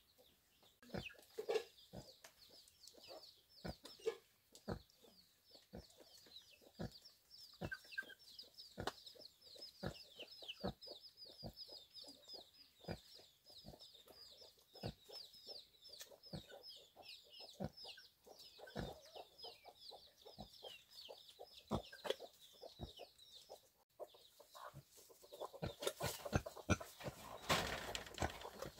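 Chickens clucking and peeping: a steady run of quick, high, falling chirps over scattered sharp knocks. A louder rustling, scraping noise comes near the end.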